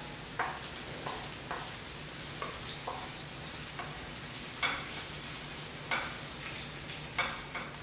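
Wooden spatula scraping and tapping sauteed squash out of a small frying pan onto a plate, a series of short scrapes spread through, over a steady sizzle from the hot pan.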